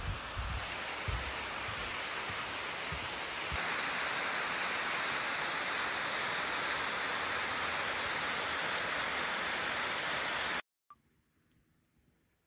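Steady rush of a waterfall, loud and even, with a few low bumps near the start; it cuts off abruptly near the end.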